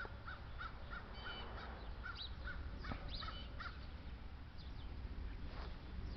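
Crows cawing faintly: a run of short, evenly spaced calls, about three a second, that stops about three and a half seconds in, with a few higher chirps among them.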